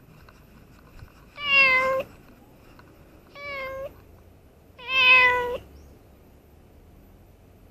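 Domestic cat meowing three times, the second meow quieter and shorter than the other two.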